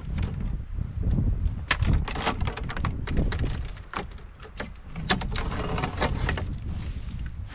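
Metal-framed military snowshoes knocking and scraping against a snowmobile's rear cargo rack as they are pulled off, a string of sharp clacks. Wind rumbles on the microphone underneath.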